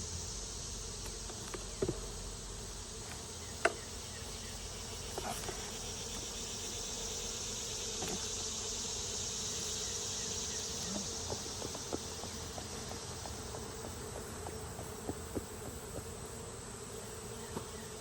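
Honeybees buzzing steadily around an open hive, over a continuous high-pitched insect drone. A few sharp clicks and knocks break in, the loudest about four seconds in.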